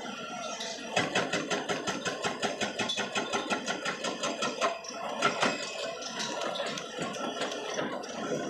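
Hitachi tracked excavator working on a brick boundary wall: its engine runs with a rapid, even clatter of about six knocks a second that eases off about halfway through.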